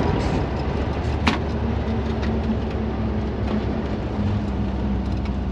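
VW Kombi van driving at highway speed, heard from inside the cab: a steady engine drone with road and wind noise. A single sharp click about a second in.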